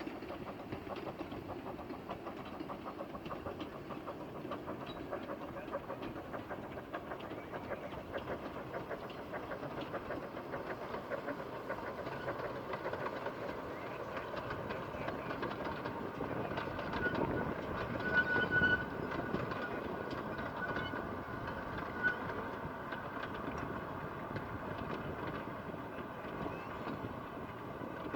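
Narrow-gauge steam train hauled by a Hunslet Wren-class locomotive running along the line, its wheels clicking rapidly over the track. It grows louder about two-thirds of the way through, then eases off.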